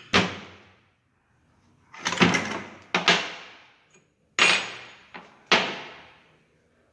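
Metal gearbox parts clanking as they are picked up and moved about: five sharp clanks, each ringing off over about half a second.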